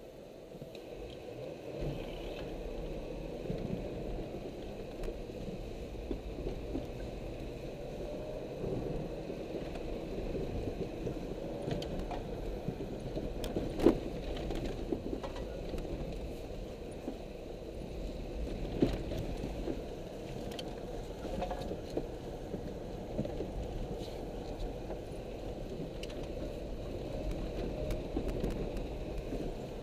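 Car being driven hard around a dirt rallycross course, heard from inside the cabin: engine running under load and rising and falling with the throttle over tyre and road noise, picking up in the first couple of seconds. Two sharp knocks stand out, the louder about 14 seconds in and another near 19 seconds.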